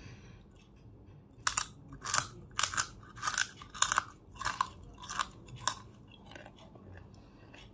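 Crunchy bites of a hard piece of edible baked clay being chewed: about nine sharp crunches roughly two a second, starting about a second and a half in and growing fainter near the end.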